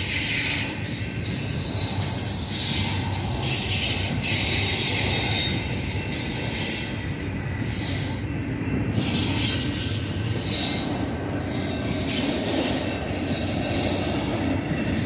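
Double-stack intermodal container cars of a long freight train rolling past with a steady rumble of wheels on rail. A high wheel squeal comes and goes over it.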